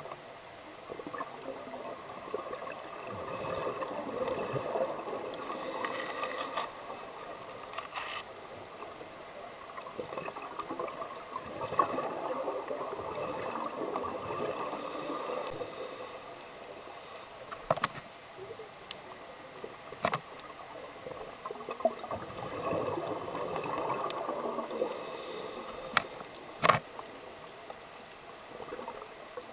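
Underwater scuba breathing through a regulator: a slow cycle of bubbling gurgle and a brief hiss, repeating about every ten seconds. A few sharp clicks are scattered through it.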